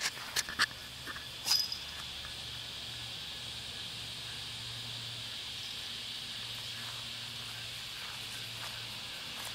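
Steady high-pitched chorus of insects, with a few sharp clicks in the first two seconds and a faint low hum underneath.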